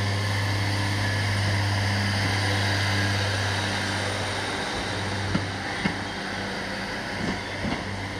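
Class 153 diesel railcar's underfloor engine running with a steady low drone as the unit pulls away, weakening about halfway through. A few sharp clicks follow soon after.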